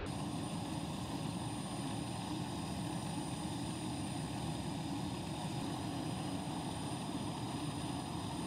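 Steady drone of aircraft turbine noise with a thin, high, unchanging whine above it, as from a turboprop transport aircraft's engines or auxiliary power unit running on the apron.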